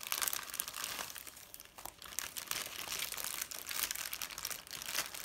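Clear plastic packaging bag crinkling and crackling as it is handled and pulled open, in quick irregular crackles.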